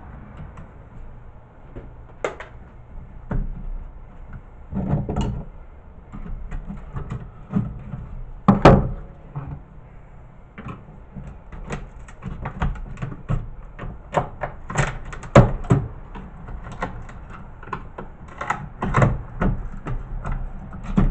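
Screwdriver prying, scraping and clicking against a CRT TV circuit board as a piece of aluminum is worked loose: irregular clicks and knocks, with a sharper knock about nine seconds in and another about fifteen seconds in.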